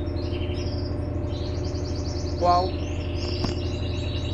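Electrolux LTE12 washing machine running with a steady low hum, with birds chirping over it in short, quick notes. One brief higher pitched call sounds about two and a half seconds in.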